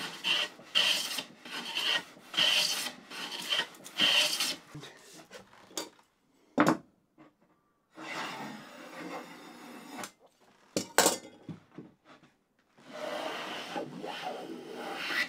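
Hand plane shaving along the long-grain edge of a wooden board: a run of short, quick strokes at first, then a sharp knock near the middle, and two longer passes after it.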